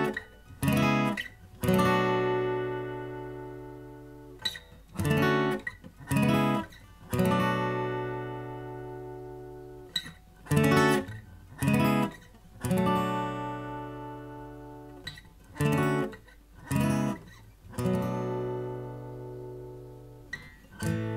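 Guild D-240E steel-string dreadnought acoustic guitar played solo, with no singing: phrases of a few quick strummed chords, each followed by one chord left ringing and slowly fading, about four times over.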